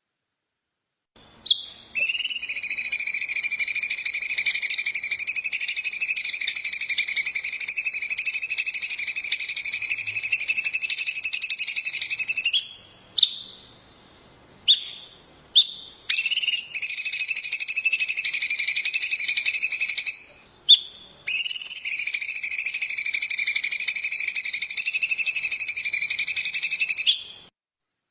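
A songbird giving long, very rapid rattling trills: three long bouts, the first about ten seconds, separated by a few short single notes.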